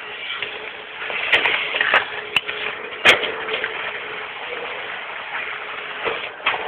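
Garbage truck running at the open rear hopper: a steady noisy hum with a faint steady tone, broken by several sharp knocks, the loudest about three seconds in.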